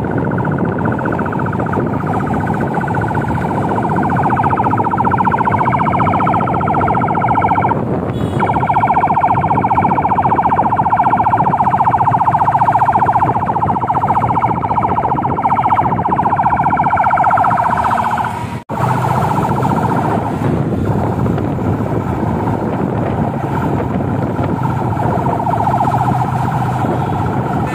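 Police siren sounding continuously over the rumble of passing cars and motorcycles, loudest through the middle, with a momentary cut-out about two-thirds of the way through.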